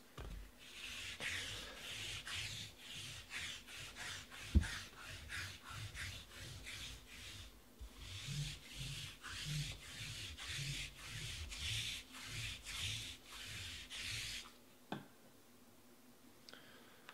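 Cloth rubbing close to the microphone in quick repeated strokes, about two a second, with a short pause midway and one sharp knock about four and a half seconds in.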